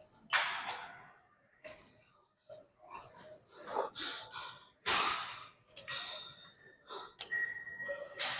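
Gym weights clinking and knocking, in scattered separate strikes with a few short rushes of noise between them.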